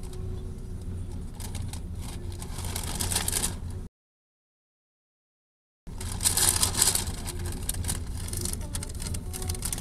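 Car cabin noise picked up by a dashboard camera: a steady low rumble of engine and road with some hiss. It drops out to complete silence for about two seconds a little before the middle, then resumes with a brief louder hissy stretch.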